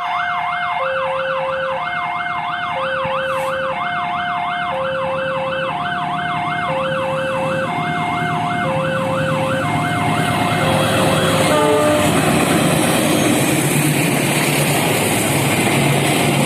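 Ambulance siren wailing: a fast wavering yelp about three times a second over a slow two-note high-low tone that alternates about once a second. From about ten seconds in, the rising noise of a passenger train passing over the level crossing takes over, and the siren fades out under it.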